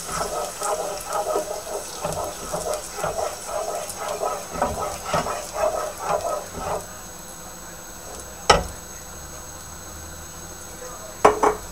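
Wooden spoon stirring tomato passata into a shallot soffritto in a pot, with short, irregular scraping and clacking against the pot for the first several seconds. Then a quieter stretch, with a single sharp knock about eight seconds in and two more knocks near the end.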